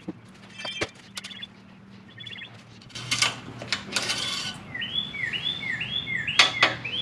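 A songbird sings a quick series of repeated slurred whistled notes, about two or three a second, starting about five seconds in. Before it come a few knocks and clicks and two rustling bursts of handling noise, over a faint steady low hum.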